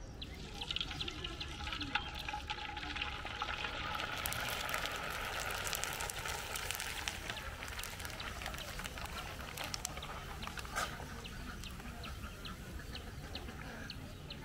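Papor wafers deep-frying in a wide metal wok of hot oil: a steady sizzle with many small crackles and pops, and now and then a sharper click as the slotted spoon touches the pan.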